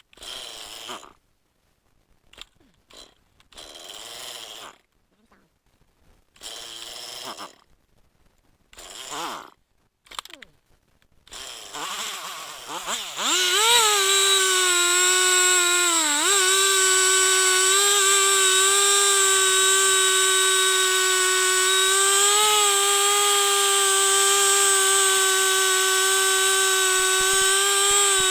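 Gas chainsaw being pull-started: several short pulls of the starter cord over the first ten seconds or so, then the two-stroke engine catches about twelve seconds in. It revs up and down and settles into a steady high-speed run.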